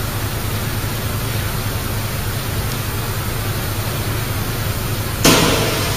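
Steady hum and hiss of factory machinery. About five seconds in, a sudden loud rush of noise rises and then fades.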